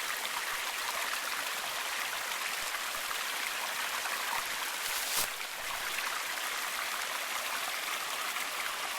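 Stream running steadily, an even rushing hiss of flowing water. A single brief knock about five seconds in.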